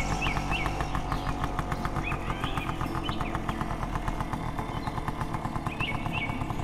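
Motorbike engine running steadily with a rapid even putter, with short bird chirps early on and again near the end.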